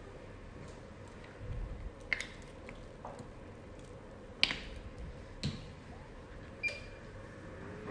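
A few sharp clicks and taps of hands handling a plastic gel bottle and a treatment electrode, over a faint steady hum; the last click, near the end, rings briefly.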